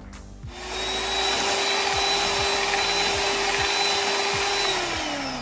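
Electric mixer beating softened butter in a bowl. The motor starts about half a second in and runs with a steady whine, then slows with falling pitch near the end as it is switched off.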